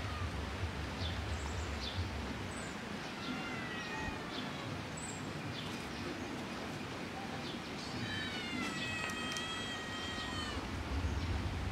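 Hungry kittens meowing for food held above them: a few short meows, then one long drawn-out meow lasting over two seconds, about eight seconds in.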